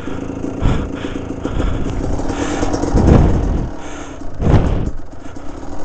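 Kawasaki KDX 200 two-stroke dirt bike engine running close to the rider's helmet as the bike picks its way over rough, rocky ground. It surges in loud bursts of revs, most strongly about three and four and a half seconds in.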